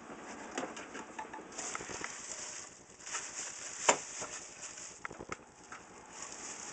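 Plastic bubble wrap rustling and crinkling as it is pulled from a packed clock by hand, with scattered small crackles and one sharp click about four seconds in.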